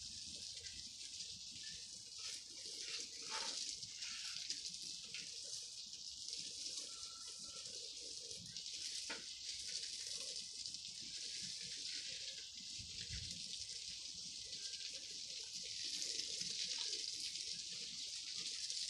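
Garden hose spraying water over a flower bed: a steady hiss that grows a little louder near the end.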